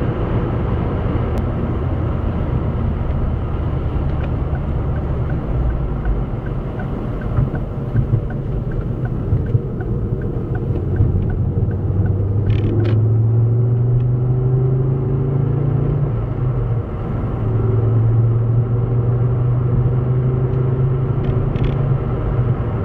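Car engine and tyre noise heard from inside the cabin while driving: a steady low rumble. The engine's hum grows stronger about halfway through, drops out briefly, then comes back. A light, regular ticking sounds for several seconds in the first half.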